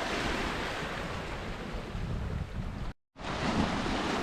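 Small waves washing on a calm shore, with light wind rumbling on the microphone; the sound cuts out for a moment about three seconds in.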